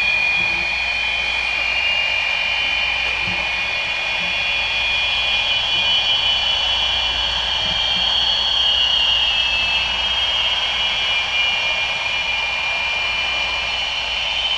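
Audio feedback from Fisher-Price baby monitors, a receiver in front of its transmitter. Several high steady whistling tones sound over a hiss, with their pitches slowly drifting and sliding.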